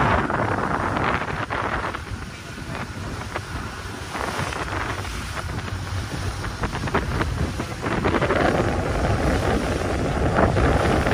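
Wind buffeting the microphone over the rumble of a motorboat under way and the rush and splash of water along its hull. A faint steady whine joins in about eight seconds in.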